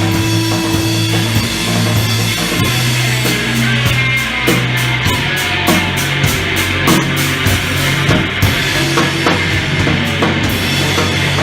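Live rock band playing: a drum kit with cymbal hits over held low bass notes that step in pitch every second or two.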